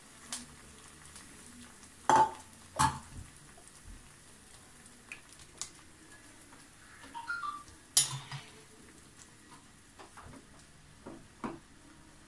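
Wooden spatula knocking and scraping against a plastic tea strainer and a metal pan as jaggery syrup is strained into simmering payasam. There are a few sharp knocks, the loudest about two seconds in, again just after, and about eight seconds in, over the low sizzle of the boiling pan.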